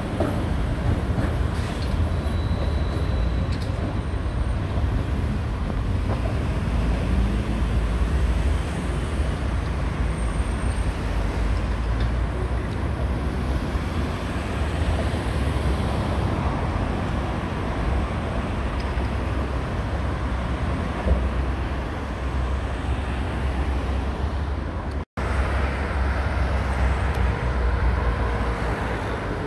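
Steady rumble of road traffic on the avenue mixed with electric metro trains running on the Athens Line 1 tracks beside it. The sound drops out for an instant near the end.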